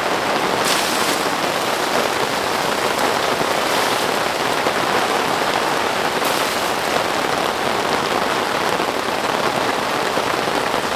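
Heavy rain falling steadily, an even dense patter of drops.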